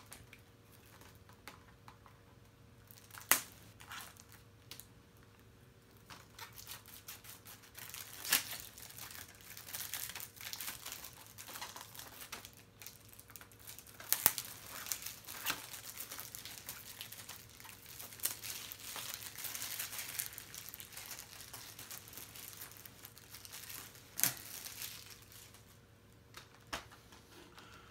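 Plastic shrink wrap being torn and peeled off a Blu-ray case by hand: the film crinkles and crackles, with a few sharp clicks. The crinkling is sparse at first and gets busy from about eight seconds in until shortly before the end.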